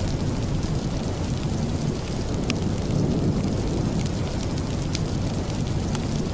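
Steady rain with a low rumble underneath, broken by a few sharp clicks about two and a half, four and five seconds in.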